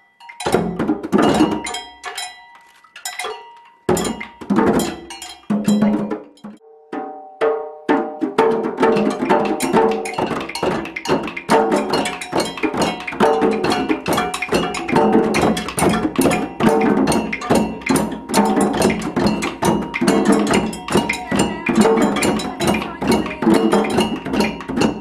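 A group of djembe hand drums played together, with wooden sticks clicking alongside. A few scattered strikes at first, then from about eight seconds in the whole group joins in a fast, continuous rhythm.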